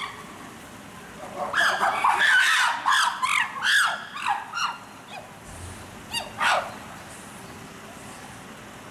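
Chimpanzees calling: a loud, rapid run of high calls rising and falling in pitch for about five seconds, tailing off with two last calls.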